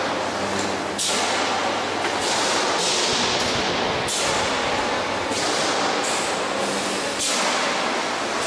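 Pressed steel radiator production line machinery running with a steady noise, overlaid by sharp hisses that start roughly once a second.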